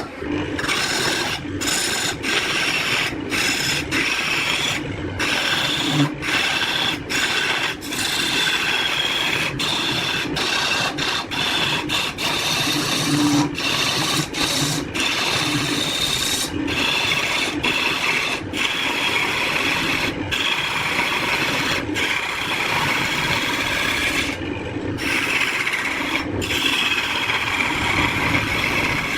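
Wood being worked with an abrasive tool: a steady rasping scrape in repeated strokes, broken by brief pauses every one to two seconds.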